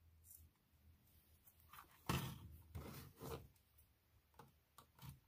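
Faint handling noises: a small plastic RC crawler chassis being turned over and rubbed by fingers, with soft rustles and clicks that cluster about two seconds in.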